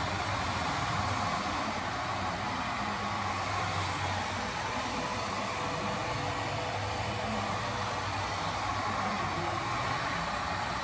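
Small handheld hair dryer running steadily, blowing air onto a wig at the hairline.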